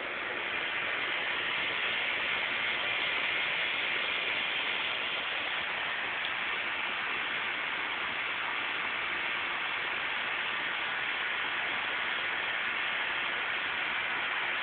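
Steady, even hiss that stays level throughout, with no distinct events.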